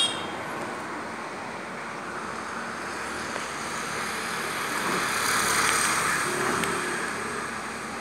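Steady road traffic noise, swelling louder about two-thirds of the way through as a vehicle passes, with a brief shrill bird call right at the start.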